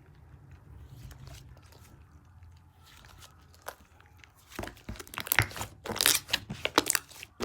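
Fluffy cotton candy slime being squeezed and stretched by hand, giving crisp crackling and popping. It is faint at first, then thick and loud from a little past halfway.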